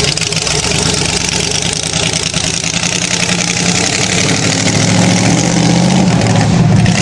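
Mud-bogging buggy's engine running and revving as the rig pulls through the mud pit, growing louder near the end.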